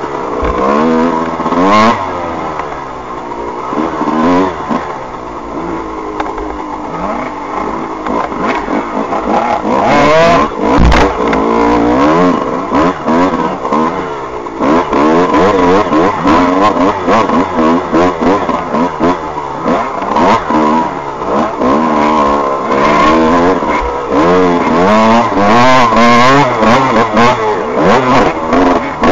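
Off-road motorcycle engine revving hard and rising and falling continually as the rider works the throttle and gears over rough dirt track, with scattered knocks and rattles from the bike.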